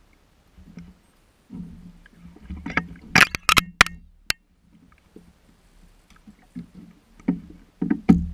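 Knocks and thumps on the kayak hull and gear as a landing net and fishing rod are handled, with a cluster of sharp clacks about three to four seconds in and more heavy thumps near the end.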